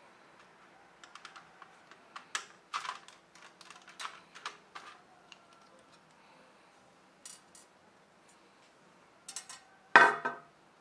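Small scattered clicks and taps of a screwdriver working a tiny screw on the keyboard's plastic and circuit-board parts. About ten seconds in comes a louder, ringing clatter as the screwdriver is set down on the table.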